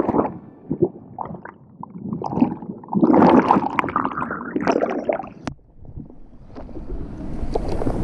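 An action camera going into a waterfall pool with a splash, then muffled underwater bubbling and gurgling from the swimmer's movements, loudest about three to five seconds in. Near the end, wind on the microphone and surf rise as the camera is back above the sea.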